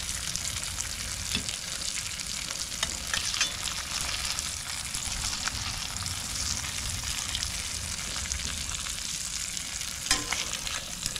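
Crappie fillets frying in oil in a stainless steel skillet, a steady sizzle with fine crackling. A metal spatula scrapes and clicks against the pan now and then, most sharply about ten seconds in.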